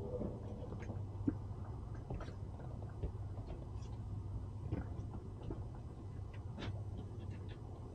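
Two boats lying side by side against a fender: a steady low hum under scattered light clicks and knocks from the hulls and gear being handled.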